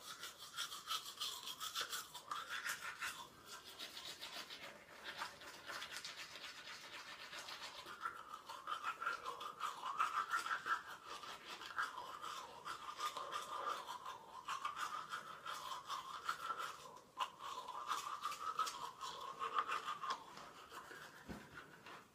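Manual toothbrush scrubbing teeth in rapid back-and-forth strokes, with a few short pauses.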